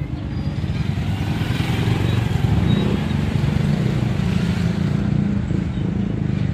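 Small motorcycle engine of a tricycle running close by with a steady low rumble, growing a little louder about two seconds in.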